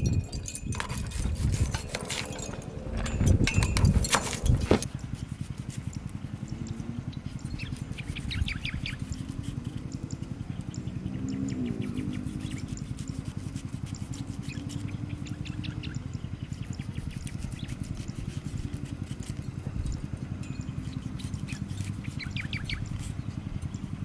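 A kitchen knife cutting through an apple onto a wooden cutting board: a run of crisp cuts and knocks in the first five seconds. After that a knife peeling a green fruit by hand over a steady low hum, with a few short bird chirps now and then.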